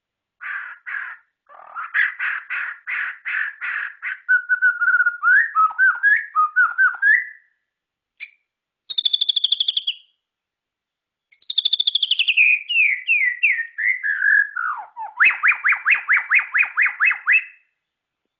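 White-rumped shama (murai batu) singing: whistled phrases of rapid repeated notes, slurred glides and fast trills, broken by short pauses.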